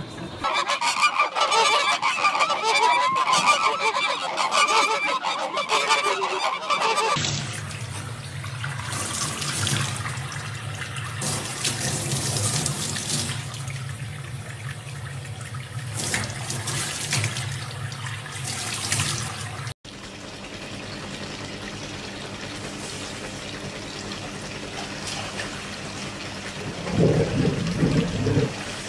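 A loud, wavering high-pitched cry for about the first seven seconds. Then a kitchen faucet runs and splashes into a stainless-steel sink for about twelve seconds and cuts off suddenly. A short low sound comes near the end.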